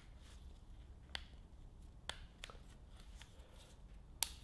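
Faint handling of a piston with its rings fitted, turned over in gloved hands: a few sharp light clicks of metal, the loudest near the end.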